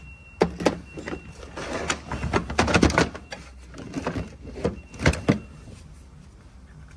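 Metal automatic-transmission parts being handled on a steel workbench: a string of knocks, clinks and clatter, busiest in a rattling run about two to three seconds in, then two sharp hits about five seconds in.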